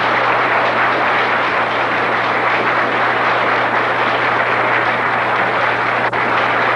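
Audience applauding steadily in a hall, a dense even clatter of clapping with no break, over a steady low hum.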